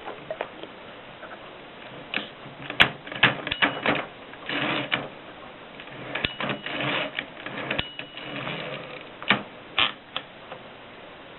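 1950s Express manual typewriter being typed on: irregular clacks of the type bars striking, in uneven bursts, with a few longer rattling stretches of mechanism noise between them.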